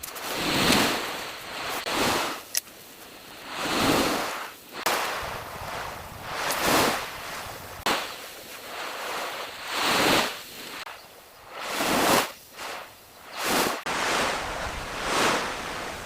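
Ocean waves washing onto the beach in repeated swells every two to three seconds, with a few sharp clicks in between.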